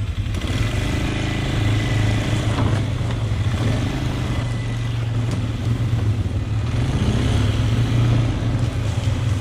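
Polaris Sportsman 500 ATV's single-cylinder four-stroke engine running under way, its steady low note rising and falling a little with the throttle.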